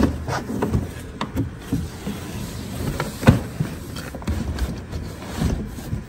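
Leather western saddle being lowered and pushed into a large cardboard box: irregular bumps, scrapes and rustling of leather and stirrups against cardboard, with one sharp knock about three seconds in.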